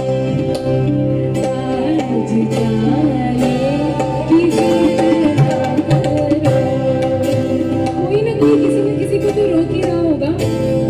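Live Indian ghazal-style music: a woman sings a wavering melodic line over acoustic guitar and tabla.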